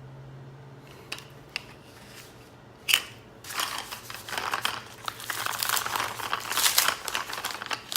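Plastic packaging being handled and unwrapped: a few light clicks, a sharp snap about three seconds in, then continuous crinkling and crackling.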